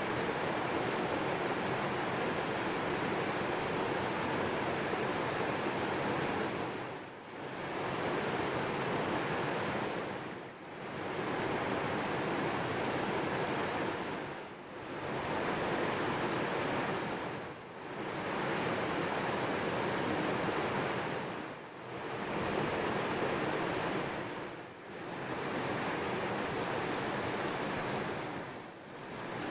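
Steady rush of flowing spring water, with brief dips in level every three to four seconds.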